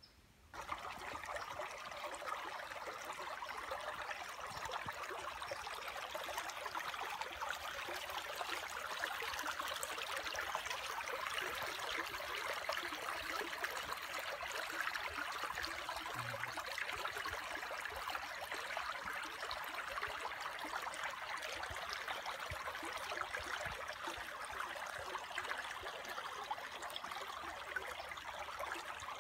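Small rocky woodland creek running and trickling over stones, a steady water sound that starts abruptly about half a second in.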